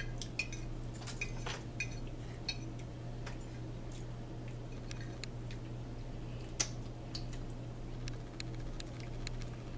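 Metal forks clinking and scraping against dinner plates while two people eat: irregular light clicks, a few a second, over a steady low hum.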